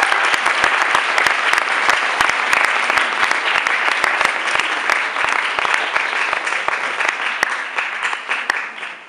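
Audience applauding, with dense clapping that dies away near the end.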